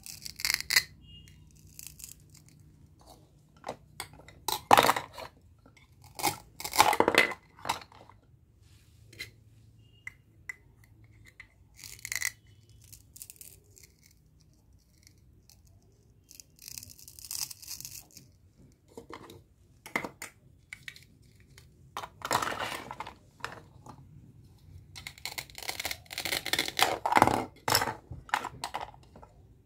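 Hook-and-loop (velcro) pads ripping as the halves of a plastic toy fruit are pulled apart, several separate rasping tears with plastic clicks and handling between them.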